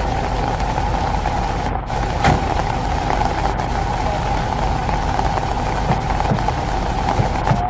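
Steady rain hiss with a low, continuous drone underneath, and a single brief sharp crack about two seconds in.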